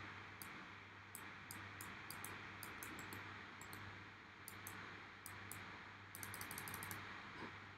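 Faint clicking of a computer mouse and keyboard, scattered short clicks with a quick run of them about six seconds in, over a low steady hum.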